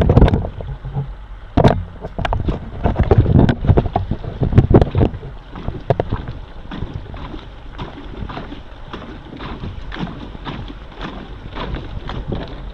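A small skiff's hull bumping and scraping over a log jam, with a run of heavy knocks and thumps in the first five seconds, then lighter, fairly regular knocks.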